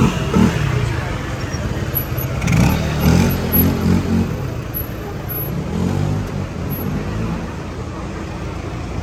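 Close-range street traffic: a compact car and then a Toyota HiAce van move slowly past with a low, steady engine rumble, mixed with passers-by talking.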